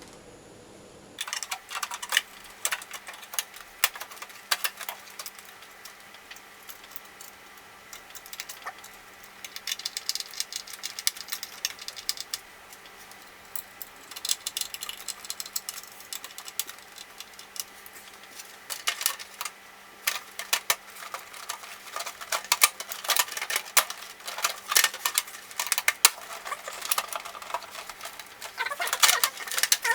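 Irregular clicks, taps and rattling of small metal and plastic computer parts being handled and refitted while an iMac G3 is reassembled after a hard drive swap, with clusters of clattering and scraping, over a faint steady hum.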